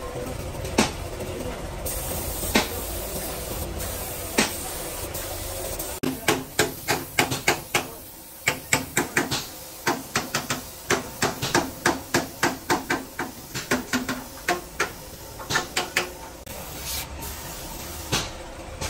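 Air-fed gravity spray gun hissing as it sprays paint, with a few single sharp clicks. From about six seconds in, a fast run of sharp knocks, two or three a second, takes over, with the hiss fainter beneath it.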